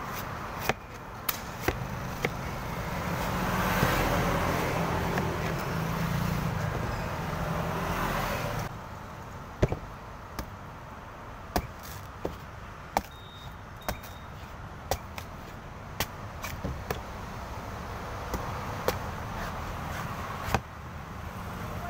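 A large knife chopping the husk of a young green coconut on a wooden board: sharp knocks, a second or so apart in the second half. For the first few seconds a passing motor vehicle's engine swells and then cuts away about eight seconds in.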